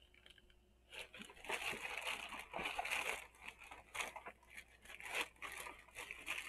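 Plastic poly mailer bag crinkling and tearing as it is pulled open by hand, starting about a second in with a dense run of crackles and rustles.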